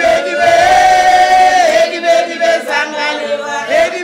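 Group of voices singing a chant together: one long held note, then shorter sung phrases.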